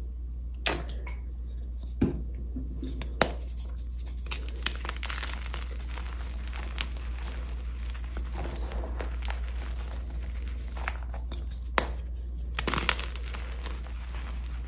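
Soft blocks of dyed gym chalk being crumbled and crushed by hand, with a dense crunching and crackling and a few sharper snaps as pieces break: several in the first few seconds and a couple more near the end.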